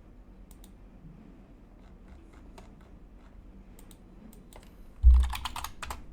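Computer keyboard typing: scattered faint key clicks, then a short, loud flurry of keystrokes with a low thump about five seconds in.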